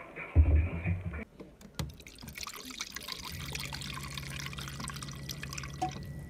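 A few loud low thuds and clicks, then, from about two seconds in, cold water running steadily from a push-button water dispenser tap into a bowl of tsuyu dipping sauce, with a low steady hum underneath from about three seconds in.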